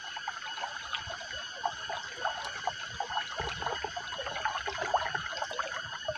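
Shallow forest stream trickling and babbling over rocks. A steady high ringing runs underneath.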